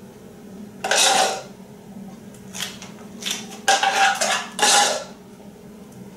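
A metal spoon scraping and clinking against a non-stick cooking pot as thick custard is scooped out of it: about five scrapes, starting about a second in, the last and loudest ones near the end.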